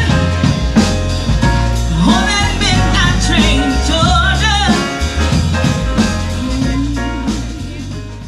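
Live jazz band: a woman singing into a microphone over piano, a heavy bass line and a drum kit, the music fading out near the end.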